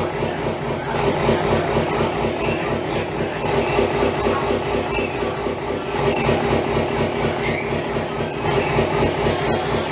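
Experimental noise music played live. A dense, fast-pulsing low drone runs under high squealing tones that waver and bend up and down and break off now and then, much like train wheels squealing.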